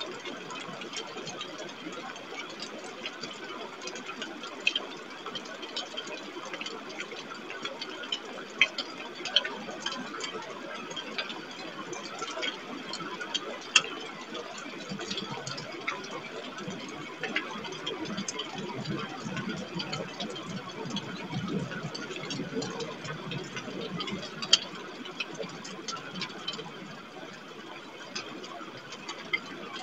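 Storm rain and wind on a webcam's microphone: a steady hiss with scattered sharp ticks, and a deeper rumble swelling about midway.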